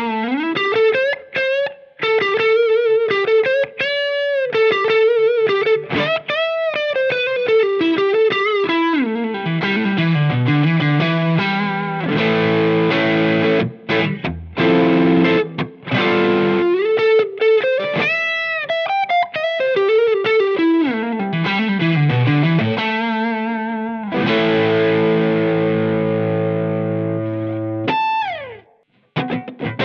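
Electric guitar played through a Cornerstone Antique Classic Drive V2, a Tube Screamer-style overdrive pedal: single-note lead lines with string bends and vibrato. About 24 seconds in it moves to a held, ringing chord, and near the end there is a slide down the neck.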